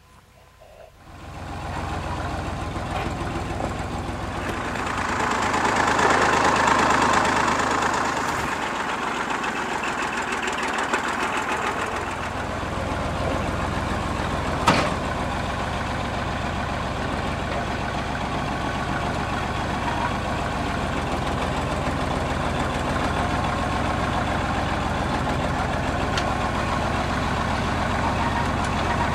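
An engine idling steadily, with a stretch of louder, hissier noise a few seconds in and a single sharp click about halfway through.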